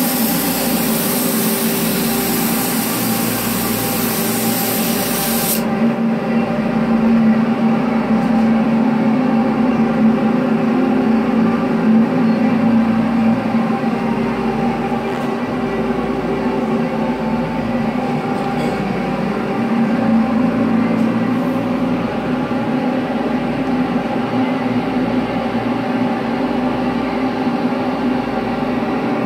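Gravity-feed spray gun hissing as it sprays activator over the film on the hydrographic dip tank, cutting off sharply about six seconds in. Under and after it runs a steady motor hum from the booth's box fan.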